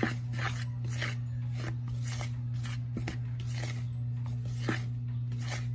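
Wooden spoon stirring dry rye and wheat flour in a plastic bowl: a soft scraping rasp repeating about twice a second, with a sharper knock at the start and near the end. A steady low hum runs underneath.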